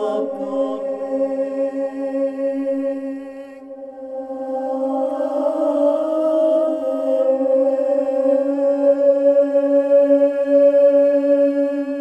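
Ambient drone music of long, steady held tones layered with overtones, chant-like in character. It dips in loudness about four seconds in and then swells back up.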